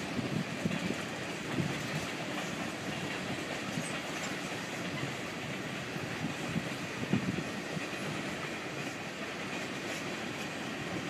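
Freight train of tank cars rolling past at a steady speed, its wheels clattering over the rail joints every second or two.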